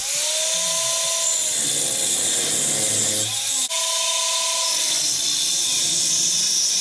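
Angle grinder with an abrasive wheel cutting steel: a loud, steady, high grinding hiss that dips briefly a little past halfway as the wheel comes off and back onto the metal.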